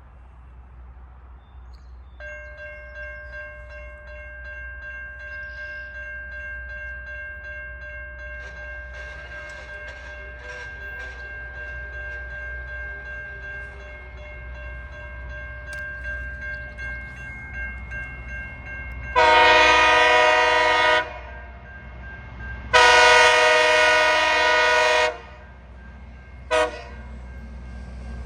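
Loram rail grinder train's lead locomotive sounding its Nathan K3LA air horn: two long blasts and a short one, the start of a grade-crossing signal. Before the horn, a steady whine and a slowly rising rumble build as the train approaches.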